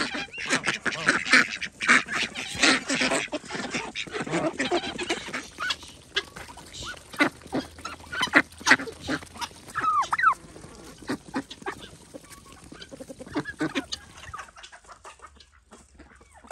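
A flock of domestic ducks and geese quacking and honking, with many overlapping calls over the first several seconds. The calling thins out to scattered single calls and grows quieter near the end.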